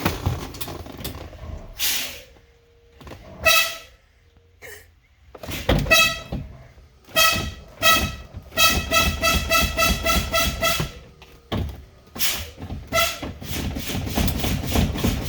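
Thomas C2 school bus horn honked in short toots: a few single toots, then a fast run of about five toots a second, a pause, and another fast run near the end.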